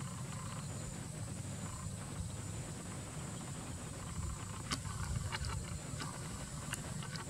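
Steady high-pitched insect drone over a low rumble, with a few sharp clicks in the second half.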